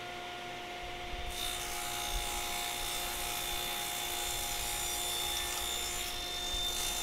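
Table saw running with a steady whine, its blade cutting through a block of wood held upright in a clamped jig. The cutting noise starts about a second in, breaks off briefly near the end, and starts again.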